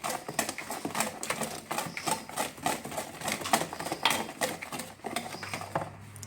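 A utensil clicking rapidly and unevenly against the side of a mixing bowl as cake batter is stirred by hand.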